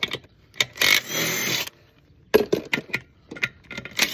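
Impact gun spinning lug nuts off a Ford Transit van's wheel in short bursts of about a second, one near the start and another at the very end. Between the bursts come several sharp metallic clicks and knocks as the loosened lug nuts and the socket are handled.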